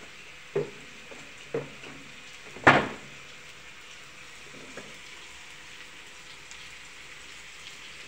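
Diced carrot and mushrooms frying in a wok with a steady sizzle. Two short knocks come early, then a much louder knock about two and a half seconds in, and a faint one later.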